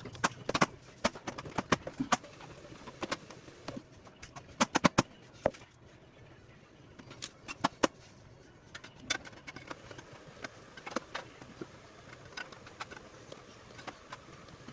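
Irregular clicks and knocks of hard parts being handled, coming in loose clusters, with the loudest run about four to five seconds in.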